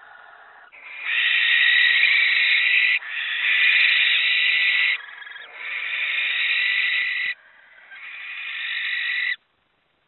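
Barn owls in a nest box giving four long, harsh hissing screeches, each about two seconds, after a fainter call at the start; the calls stop abruptly shortly before the end.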